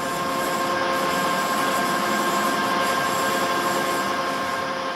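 A Style 410 CNC lathe running: a steady mechanical whine made of several pitched tones over a hum of machine noise, easing slightly near the end.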